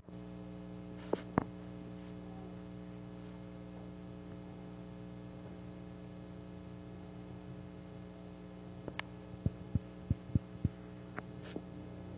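Steady electrical hum made of a stack of even tones, with scattered sharp clicks: two just over a second in, then a quick run of them near the end.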